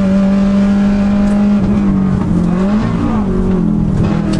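Subaru Impreza WRX rally car's 2.0-litre turbocharged flat-four engine pulling hard at high revs, heard from the outside of the driver's door with road and wind noise. Its pitch dips and wavers briefly in the middle, then holds steady again.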